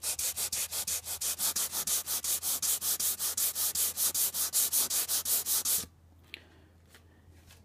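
800-grit wet/dry sandpaper rubbed quickly back and forth under the fingertips on the soapy, wet aluminum body of a model train passenger car, wet-sanding out a scratch. The strokes are fast and even, about seven a second, and stop suddenly about six seconds in.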